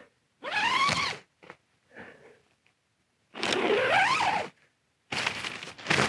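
Zip on a Berghaus Cheviot 2 tent's flysheet door being pulled open in three long strokes, each a buzzing run that rises in pitch as the pull speeds up.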